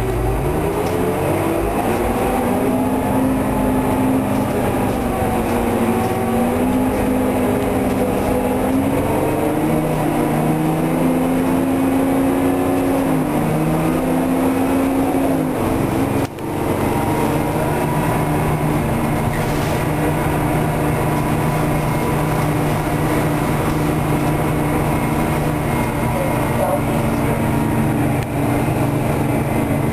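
Detroit Diesel 6V92TA two-stroke V6 diesel of a 1990 Orion I transit bus, heard from inside the cabin. It pulls away with its pitch climbing and dropping back in steps as the ZF automatic shifts up. After a brief break about halfway through, it runs on at a steady pitch.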